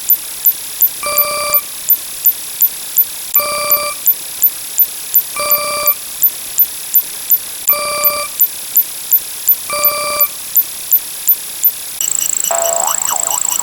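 Electronic ringtone sound effect looping: a short pitched beep about every two seconds over sharp ticks about twice a second and a steady high tone. Near the end it switches to a different steady high tone with a brief wavering sweep.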